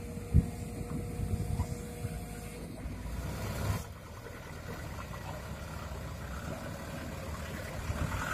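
Excavator dropping soil into a steel dump-truck bed, with a sharp knock about half a second in, over a steady diesel engine rumble. About four seconds in it cuts to a loaded Hino 300 Dutro dump truck's diesel engine running as the truck pulls away, growing louder near the end.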